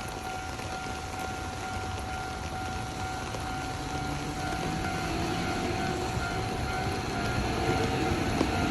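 Japanese level-crossing warning bell ringing steadily over rain hiss, while an approaching Hankyu electric train's rumble builds from about halfway through and grows louder toward the end.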